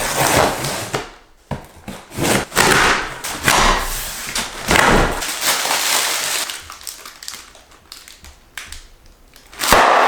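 Cardboard shipping box being cut and torn open: a series of rasping rips of tape and cardboard, then a single loud thump near the end.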